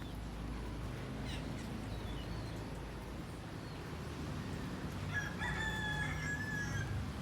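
Birds calling: a few faint, short chirps in the first few seconds, then about five seconds in a louder drawn-out call held for nearly two seconds. The chirps fit Asian glossy starlings feeding.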